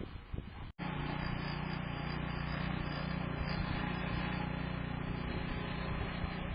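A few short knocks, then, after a sudden cut under a second in, a car engine running steadily at idle: an even low hum.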